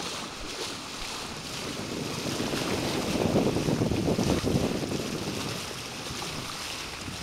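Water rushing and splashing along a sailing yacht's bow, with wind buffeting the microphone, swelling louder a few seconds in and then easing.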